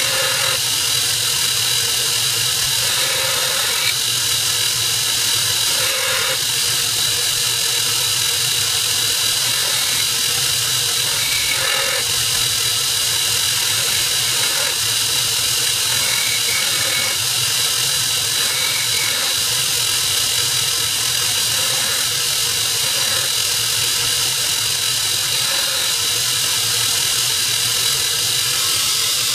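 Belt grinder running steadily with a constant high whine as a knife blade is ground freehand against the abrasive belt in repeated passes.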